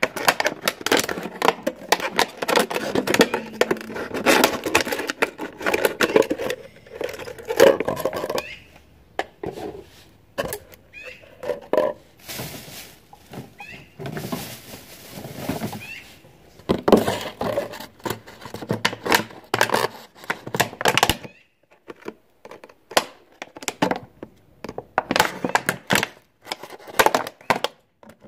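Scissors cutting through thin plastic water bottles: irregular crackling snips and clicks of the plastic, with bottles knocked and handled. Around the middle, a plastic bag rustles.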